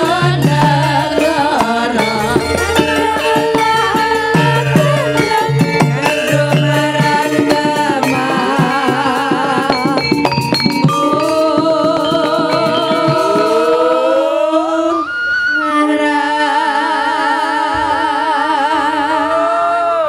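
Javanese sinden (female singers) singing together into microphones over gamelan accompaniment with drum strokes. About halfway through, the drumming drops back and the voices hold long notes with vibrato, one of them sliding upward.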